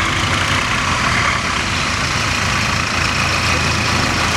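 Wheeled farm tractor's diesel engine running steadily as the tractor drives up.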